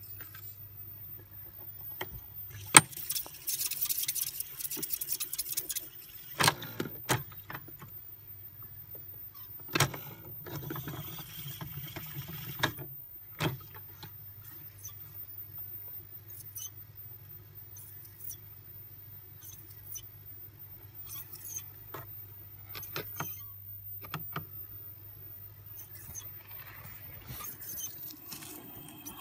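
Sony TC-102 reel-to-reel tape recorder running with a steady motor hum while its function lever clunks between positions and the tape winds at speed with a hiss in two spells, the transport working normally after repair. The hum stops near the end, followed by light rustling handling noise.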